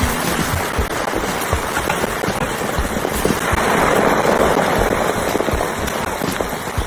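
Food frying in hot oil, a steady sizzle with many small crackles and pops.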